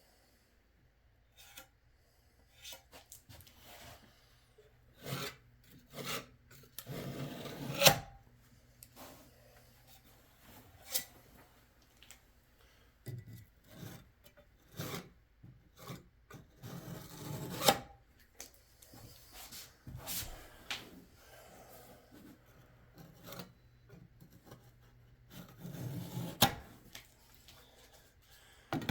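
Irregular scraping and rubbing strokes as gooey, elastic sealant is worked and wiped along board seams and over fasteners, with a few sharp clacks between them.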